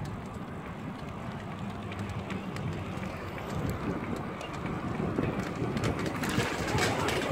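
Bicycle rolling along a paved trail: tyre noise and rattling, with wind on the microphone. It gets louder and busier with sharp clicks and rattles about five seconds in, as the bike enters a concrete underpass.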